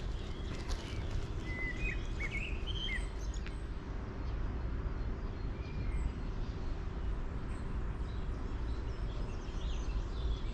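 Birds chirping over a steady low outdoor rumble, with a cluster of short calls about two to three seconds in and a few more near the end.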